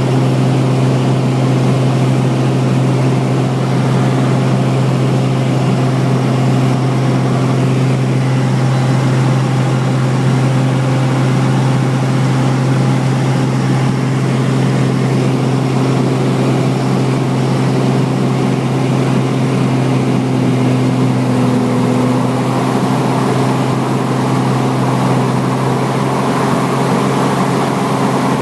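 Light aircraft's piston engine and propeller droning steadily in flight, with an even low hum that does not change in pitch.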